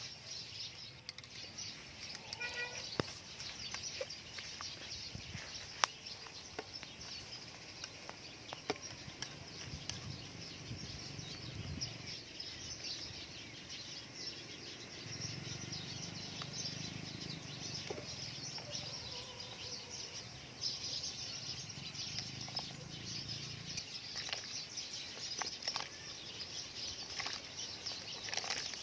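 A pot of water heating toward the boil, hissing steadily with scattered small ticks and pops. Faint chicken clucks and bird chirps sound in the background.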